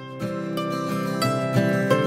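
Background music with plucked strings, coming in suddenly.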